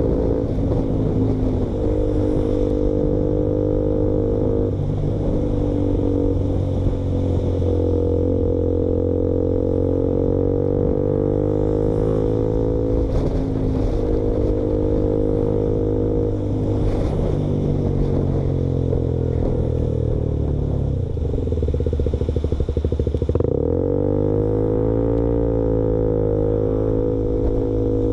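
KTM Duke motorcycle engine running loud through an exhaust with the baffle removed. The note holds steady for long stretches, falls as the revs drop about 20 seconds in, then climbs sharply again a few seconds later.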